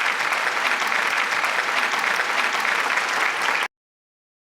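Applause from a crowd: a dense patter of many hands clapping, which cuts off abruptly near the end.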